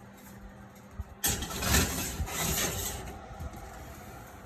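Kitchen oven being opened and worked: a sharp click about a second in, then about two seconds of loud rushing, scraping noise that fades away, over a faint steady low hum.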